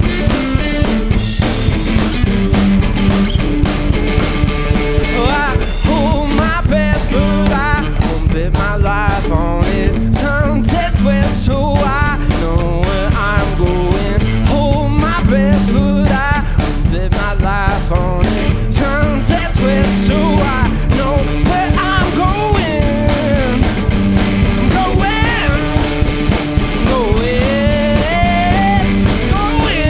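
Live blues-rock played by an electric guitar and a drum kit, with a steady beat and a wavering lead line over held low notes.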